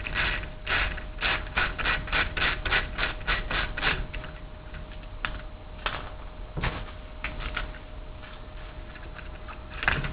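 Screwdriver backing screws out of an RC car's radio tray: a run of quick, even clicks, about four a second, through the first four seconds, then scattered clicks and a few knocks.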